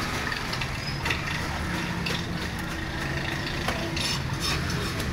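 Heavy cleaver cutting through a large fish behind the head on a wooden chopping block: a few sharp, irregular knocks and scrapes of blade against bone and wood.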